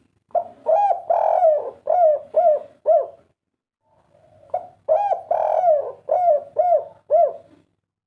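Spotted dove cooing its song twice: each phrase is a run of about six rolling, rising-and-falling coos. The second phrase begins about four seconds after the first.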